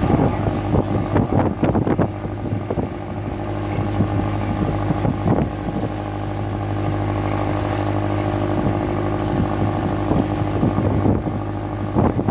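Fishing boat's engine running steadily, with scattered knocks and thuds in the first two seconds, around five seconds in and near the end.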